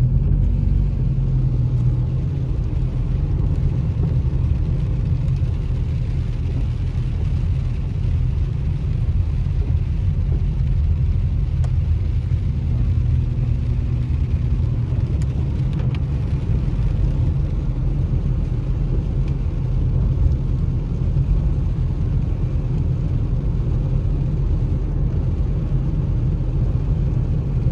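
Steady low rumble of a car's engine and tyres heard from inside the cabin while driving on a rain-wet road.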